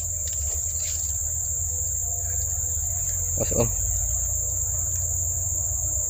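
Steady high-pitched drone of forest insects, unbroken throughout, over a low rumble on the microphone.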